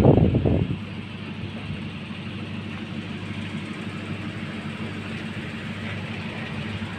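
A steady vehicle drone of engine and road noise, as heard riding along. A loud rumbling burst comes in the first second, before the drone settles.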